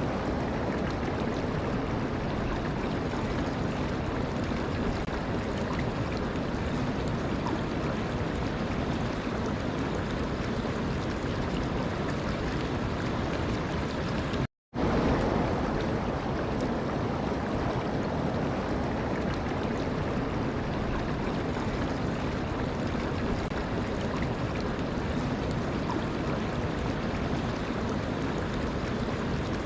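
Steady rush of flowing water, broken by a brief moment of dead silence about halfway through.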